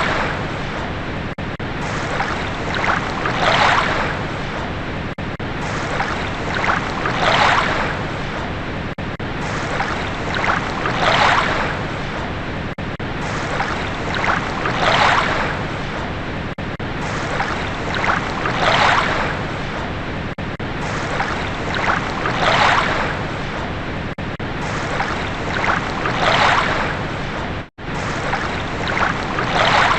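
Ocean waves washing in, a louder swell about every four seconds over a steady rush of water, with a momentary dropout near the end.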